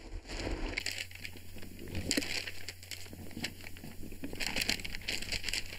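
Soft rustling and handling noises from a man shifting in a leather armchair with a magazine, in a few short bursts about two seconds in and again near the end, over a low steady hum.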